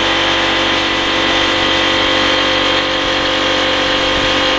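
Tyre inflator with a dial gauge pushing compressed air into a car tyre through its valve: a steady hiss over a steady machine hum.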